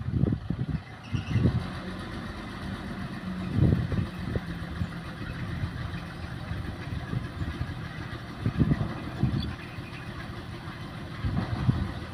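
Hyundai 5-ton dump truck's diesel engine running steadily while the hydraulic hoist raises the loaded bed to tip out soil, with several brief low rumbles over it, the strongest about four seconds in.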